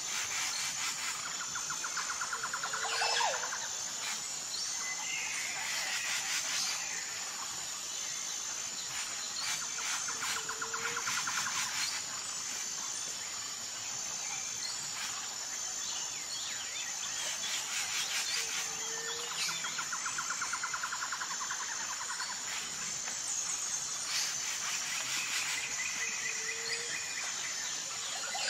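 Nature ambience of a steady high-pitched insect drone, with bird chirps and trills coming every few seconds and a short low call about every eight seconds.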